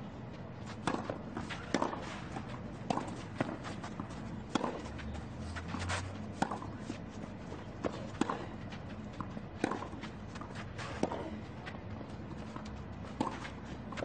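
Tennis ball struck back and forth with rackets in a rally on a clay court: sharp pops about once a second, with players' footsteps on the clay between them.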